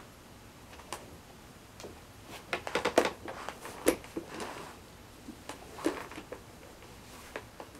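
Scattered small knocks and clicks, with a quick cluster of them about two and a half to four seconds in and a few more around six seconds.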